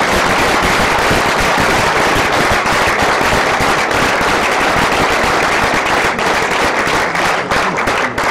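Audience applauding, loud and dense, beginning to thin into separate claps near the end.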